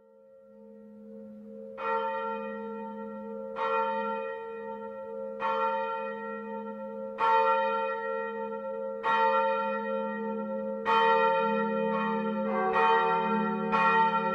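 Church bells ringing, fading in at the start: a bell is struck about every two seconds, its hum carrying on between strokes. In the last few seconds a second bell joins and the strokes come more quickly.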